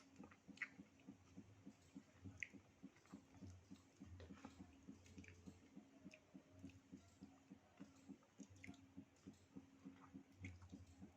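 Faint close-up chewing of frozen durian with mung beans: soft wet mouth clicks at about three to four a second, over a faint steady hum.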